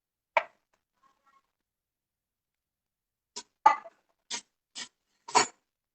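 Short scrapes and taps of a utensil working butter onto a wrap on a tawa: one near the start, then five in quick succession over the last two and a half seconds.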